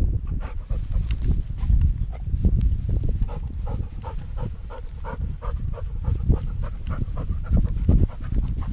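Vizsla panting quickly and rhythmically while running, heard up close from a camera strapped to its back, over a low rumble and thumping of the harness-mounted camera jostling as it moves.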